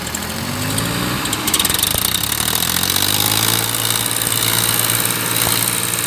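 Tractor diesel engines revving up over the first second or so, then running hard and steady under load as the tractors strain against each other on a tow rope.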